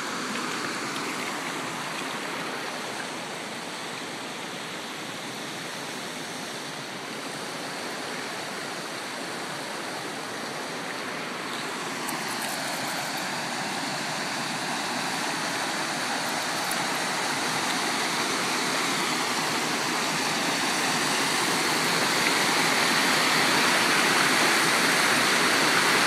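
Shallow stream rushing over a flat rock slab and a small waterfall: a steady hiss of running water that grows louder through the second half.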